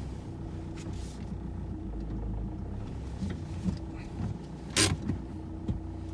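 2010 Mitsubishi Outlander engine idling steadily. A single sharp knock about five seconds in stands out over it.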